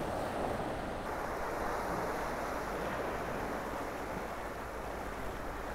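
Sea water washing and lapping against a rocky shore: a steady, even rush of surf.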